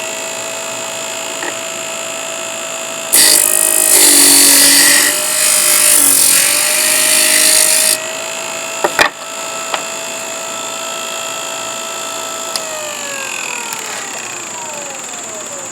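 Parkside PTSB 140 B3 bench-top disc sander running, grinding a piece of wood hard for about five seconds with its motor note dropping under the load, then running free. A couple of sharp knocks follow, and near the end the sander is switched off and winds down with a steadily falling whine.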